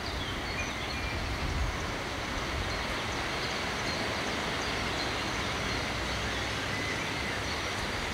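Steady outdoor background rush, such as distant traffic or wind, with a few faint bird chirps.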